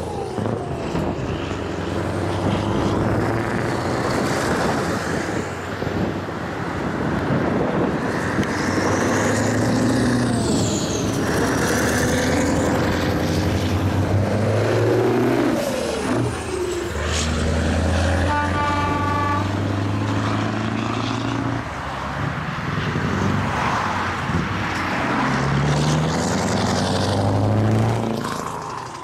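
Heavy truck tractor units passing one after another, some on loud open exhaust pipes, their diesel engines pulling hard with the pitch rising and falling through gear changes. About two-thirds of the way through comes a quick string of horn toots.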